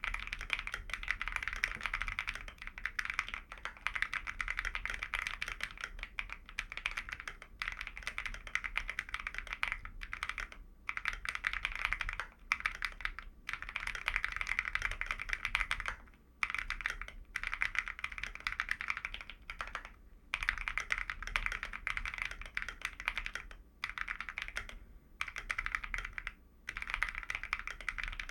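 Fast continuous typing on an AKKO ACR98 mechanical keyboard with lubed Gazzew Boba U4T tactile switches, a PE foam and three-layer tape mod, and ASA-profile keycaps. The keystrokes run in dense streaks, broken by short pauses every few seconds.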